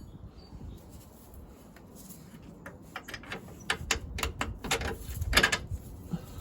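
A run of short, sharp clicks and knocks from tools and parts being handled while a shock absorber is refitted. The clicks come close together in the middle, and the loudest is a little after five seconds in.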